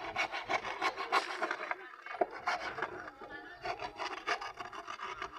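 A hand tool working wood in quick, repeated strokes, with a short break about two seconds in.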